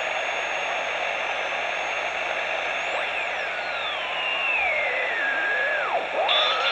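Superregenerative receiver's speaker giving a steady rushing hiss as it is tuned across the 27 MHz CB band. A thin heterodyne whistle holds high, briefly rises, then slides down in pitch, and near the end garbled, warbling tones of a single-sideband signal come in.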